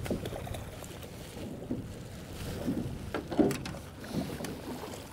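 Water lapping against the hull of a small drifting boat, with wind on the microphone. A few short knocks come through it, the loudest about three and a half seconds in.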